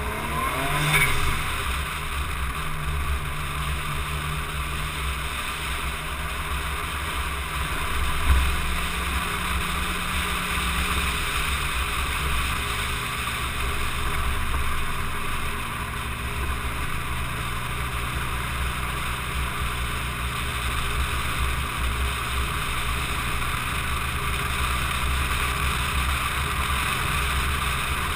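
Car driving along at a steady speed, heard from on board: the engine runs at a low, even note under a constant rush of wind and road noise. There is a short rev about a second in, and the engine note drops a little around twelve seconds in.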